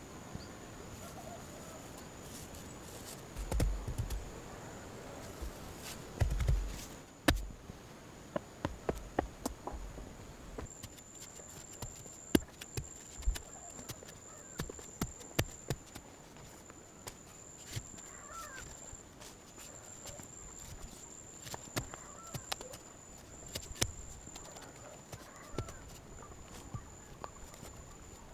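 Irregular sharp knocks and taps, like wood being handled, with a few heavier thumps in the first seven seconds, over a steady high, thin insect drone that grows stronger about a third of the way in.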